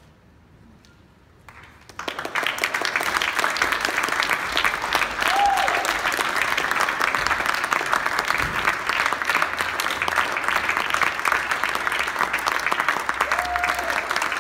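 Audience applauding, starting suddenly about two seconds in after near quiet and then holding steady. A couple of short calls from the crowd rise above the clapping.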